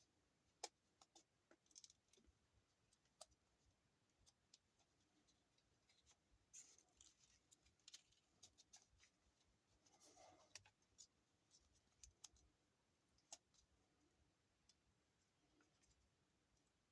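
Near silence with faint, scattered clicks and small scratchy rustles of hand work: emery paper and duct tape being handled as an emery stick is wrapped and taped.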